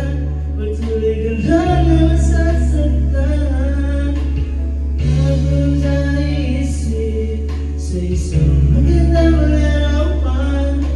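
A man singing karaoke into a microphone over a backing track with long held bass notes.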